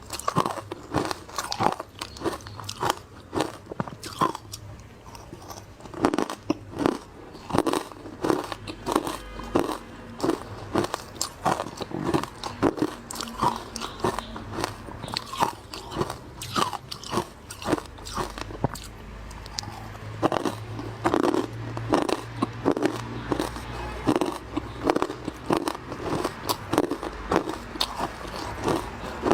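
Frozen matcha ice being bitten and chewed close to the microphone: a continuous run of crisp crunches, several a second.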